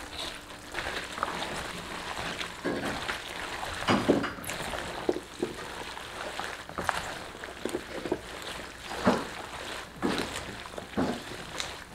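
Rubber-gloved hands mixing kimchi filling (julienned radish, scallions and red pepper seasoning) in a plastic basin: wet, irregular rustling and squishing strokes.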